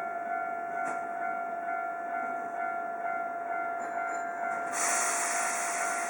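Japanese level crossing alarm ringing steadily over the rumble of a Hankyu train on the Senri Line. Near the end a loud hiss of air starts suddenly.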